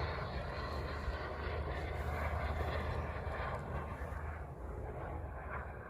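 Airplane engine droning steadily and slowly fading as the plane flies off into the distance.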